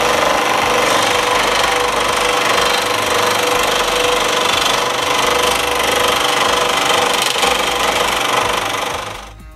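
SIP 16-inch scroll saw running with its blade stroking up and down, cutting through a thin non-ferrous metal angle section: a loud, steady metallic rattle with a ringing tone. It cuts off shortly before the end.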